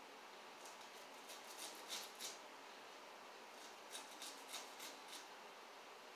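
Knife slicing sweet corn kernels off the cob, faint crisp scraping strokes in two quick runs, the second starting about four seconds in.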